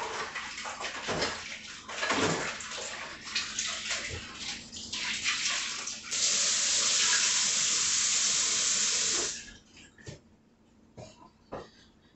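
Kitchen sink faucet running as hands are washed under it. The water splashes unevenly at first, then runs as a steady hiss for about three seconds before it is shut off abruptly, followed by a few faint clicks.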